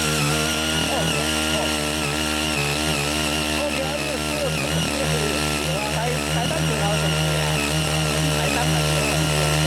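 Ching Yee CY80 mini cultivator's 5 HP engine running steadily under load as its six rotary tines till hard red laterite soil, its pitch wavering slightly.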